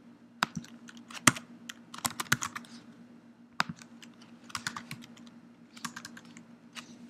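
Computer keyboard typing: irregular short runs of keystrokes with pauses between them, over a faint steady low hum.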